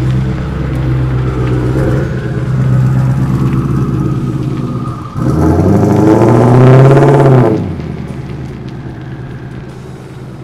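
Twin-turbo Ford Performance Coyote Aluminator V8 in a 1979 Ford F100 running at low speed as the truck rolls off. About five seconds in, a hard stab of throttle sends the pitch and level sharply up for a couple of seconds. Then the throttle is lifted and the sound fades as the truck pulls away.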